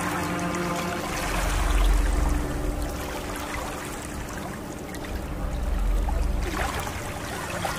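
River water lapping and sloshing in small waves, with wind gusting on the microphone twice and a faint low steady hum underneath.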